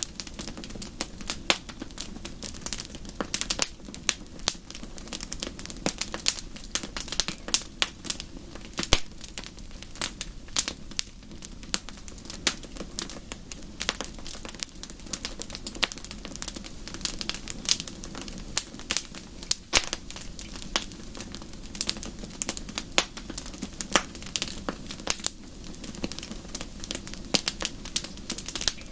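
Wood fire burning in a fireplace, with dense, irregular crackles and pops over a steady low rumble of the flames.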